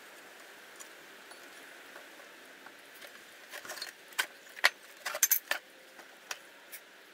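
Sharp metallic clicks and clinks of hardware being handled while the motor mount bracket is fitted by hand, a quick cluster of them starting about halfway through, a few loud.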